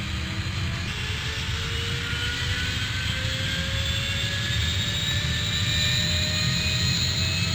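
Airplane flying overhead: a steady low rumble with engine whine that slowly rises in pitch and grows a little louder as it approaches.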